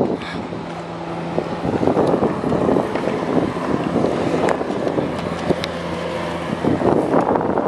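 Wind buffeting the microphone in gusts, with a steady low engine hum that comes in twice.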